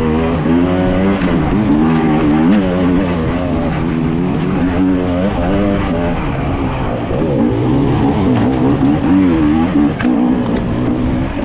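Two-stroke enduro motorcycle engine being ridden hard, revving up and down constantly as the throttle is worked.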